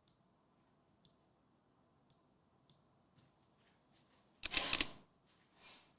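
Faint single computer-mouse clicks, about one a second, as a list is randomized five times. A louder quick cluster of clicks comes about four and a half seconds in.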